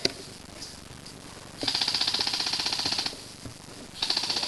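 Airsoft electric rifle firing two full-auto bursts of rapid clicking, the first about a second and a half long, the second starting near the end.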